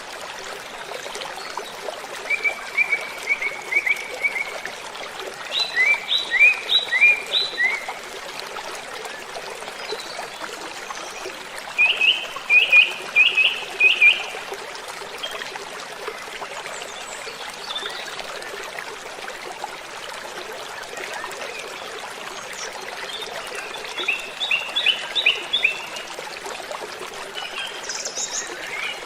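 Steady rush of a waterfall, with a bird singing over it in four short phrases of quick repeated notes and a few higher chirps near the end.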